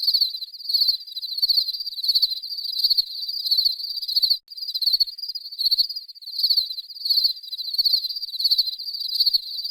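Crickets chirping: high, rapidly pulsed chirps repeating in quick succession, with a brief break about four and a half seconds in.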